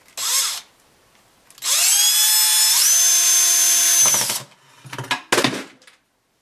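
Porter-Cable cordless drill drilling down into the sculpture's base: a short spin near the start, then a run of about two and a half seconds whose whine rises as it speeds up, steps higher partway through and falls away as it stops. A few knocks follow near the end.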